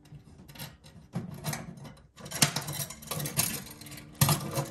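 Metal hardware clinking and rattling against a steel firewall in uneven clatters, loudest about halfway through and again near the end, as a tank strap and bracket are fastened with screws and nuts.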